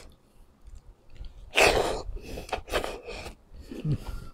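Close-miked eating sounds as a mouthful of boiled sweet potato leaves dipped in soy sauce goes in: a loud wet slurping bite about a second and a half in, then several shorter chewing and lip-smacking sounds. A brief low hum of the voice comes near the end.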